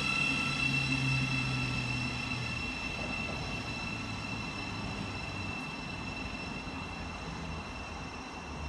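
Electric multiple unit train's electrical equipment whining steadily at several high pitches over a low hum that steps down in pitch during the first few seconds. The whole sound slowly fades.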